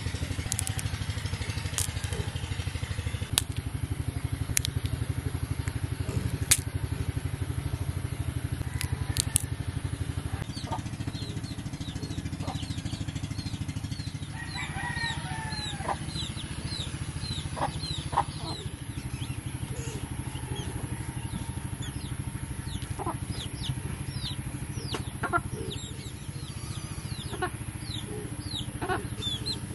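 Chickens clucking, with a rooster crowing once about halfway through, over a steady low hum; quick high chirps run through the second half, and a few sharp clicks come in the first third.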